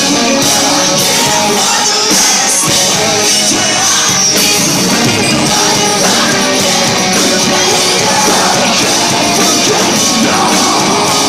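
Post-hardcore rock band playing live at full volume: electric guitars and drums with a sung vocal, loud and dense without a break, picked up by a phone microphone in the crowd.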